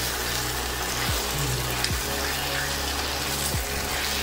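Thick chilli-paneer sauce sizzling and bubbling in a non-stick kadai while fried paneer cubes are stirred through it with a silicone spatula: a steady hiss.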